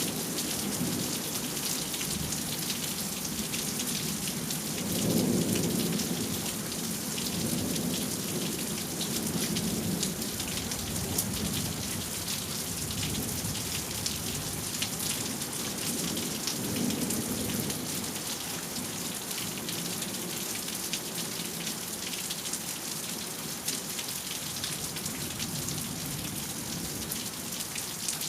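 Steady rain falling through a thunderstorm, with low rolls of thunder rumbling several times; the loudest swells about five seconds in.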